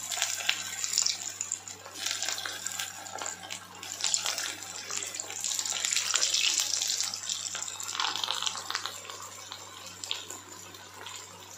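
Paneer kofta balls deep-frying in hot oil in a kadai: a steady sizzling, bubbling crackle of the oil around them, with a faint low hum underneath.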